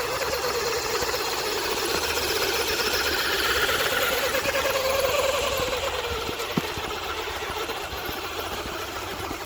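1/10 scale 6x6 RC truck's motor and drivetrain whining as it drives, rising in pitch for about five seconds and then easing off, with one sharp knock about two-thirds of the way through.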